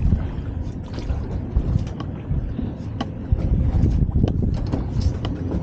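Wind buffeting the microphone over water slapping against a small boat's hull, an uneven low rumble, with scattered sharp clicks and knocks of fishing gear being handled on deck.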